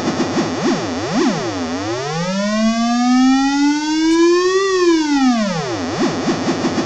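SN76477 complex sound chip's VCO tone, frequency-modulated by its LFO: a buzzy synthesizer tone in quick up-and-down pitch swoops that slow into one long rise and fall over about four seconds, then quicken again near the end.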